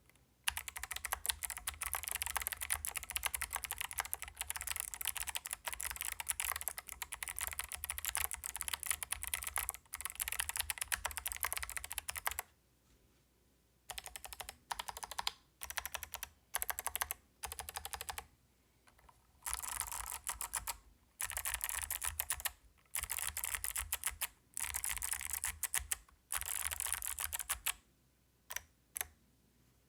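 Typing on a Keychron Q10 mechanical keyboard with clicky Kailh BOX V2 White switches on a brass plate. About twelve seconds of steady fast typing, then short bursts of keystrokes broken by pauses, longer bursts, and a few single keypresses near the end.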